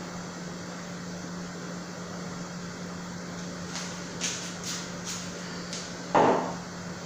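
Light clicks and taps of things being handled on a kitchen countertop, then one louder knock about six seconds in, over a steady low hum.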